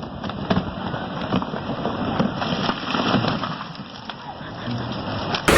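Gusty wind noise with several short, sharp cracks and snaps mixed in.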